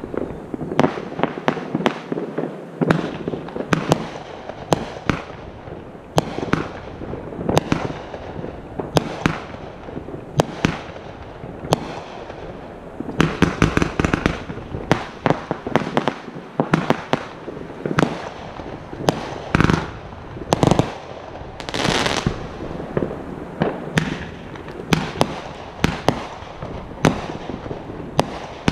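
Fireworks show: a continuous barrage of sharp bangs and pops from shells launching and bursting, several a second, with heavier volleys now and then.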